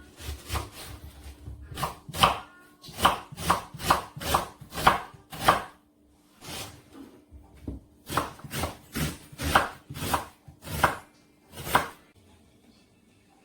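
Knife chopping food on a chopping board in a steady run of cuts, about two to three a second. The cuts pause briefly just past the middle, start again, and stop about a second before the end.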